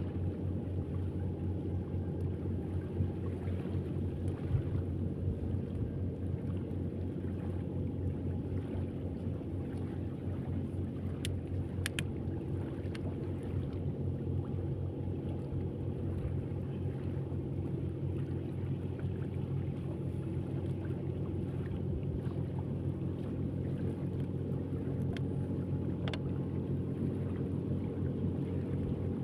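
Boat engine running at a steady speed: a constant low hum, with a few faint ticks about eleven seconds in and again near the end.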